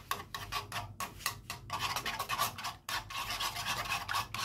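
Metal spoon scraping rapidly against an aluminium wok while beating raw eggs to scramble them, in quick repeated strokes, several a second.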